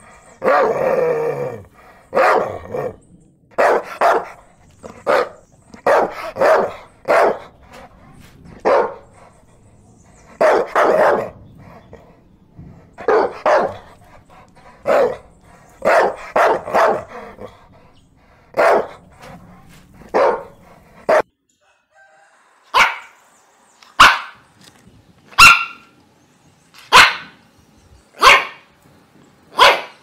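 Dogs barking: irregular barks, often two or three close together, then after a short gap about two-thirds of the way through, sharp single barks about every second and a half.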